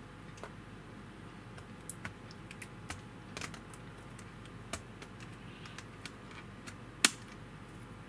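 Scattered light plastic clicks and taps from a Dell N5110 laptop keyboard as it is pried up and handled, with one sharp, louder snap about seven seconds in.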